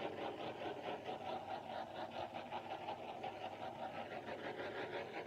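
Handheld gas torch running with a steady hiss and a fast flutter as its flame is swept over wet poured acrylic paint to bring up cells.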